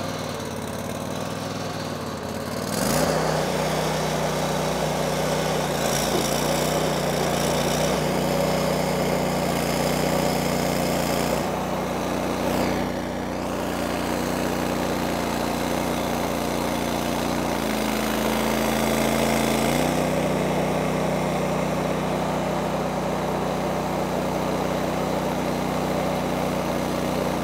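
Toro TRX300 walk-behind trencher running with its digging chain cutting a trench through sandy soil. The engine note rises and grows louder about three seconds in, then holds steady under load, with a brief change in its note about two-thirds of the way through.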